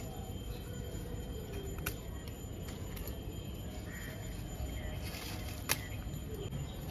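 Mint stems being picked and cut by hand with a small sickle: a few sharp snaps and clicks over a steady low outdoor background.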